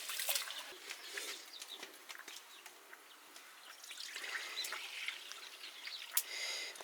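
Quiet rural background: scattered small clicks and knocks with faint bird chirps, and a short raspy call from a bird about six seconds in.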